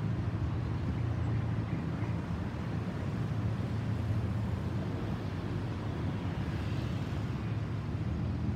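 Distant Boeing 737-800 airliner passing high overhead: a steady low jet rumble from its CFM56-7B turbofans.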